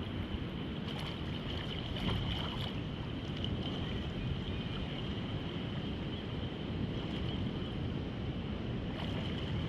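Sea water washing around a shallow rocky reef as a steady rushing noise, with wind on the microphone and a few faint knocks.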